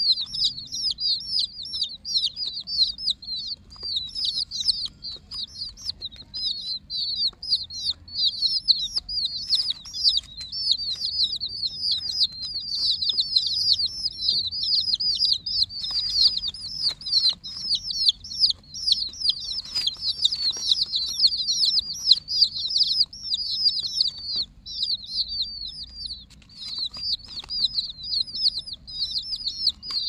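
A flock of domestic chicken chicks peeping nonstop, many short high cheeps overlapping into one continuous chorus.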